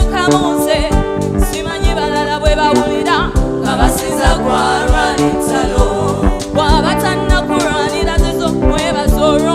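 Gospel song: several voices singing a wavering melody over a backing track with a steady drum beat.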